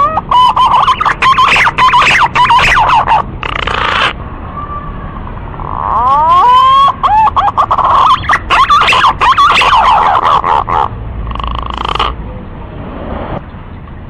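Recorded punai (green pigeon) call played as a bird lure: two long phrases of rising whistles that run into a fast, warbling chatter, followed by two shorter bursts near the end.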